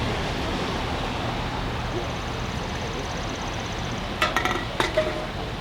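Steady outdoor background noise, with a faint rapid high ticking in the middle and a quick cluster of sharp metallic clinks about four to five seconds in.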